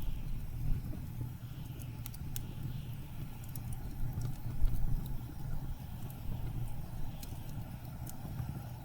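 Blizzard wind blowing low and steady, with scattered sharp crackles and pops from a wood fire burning in a fireplace.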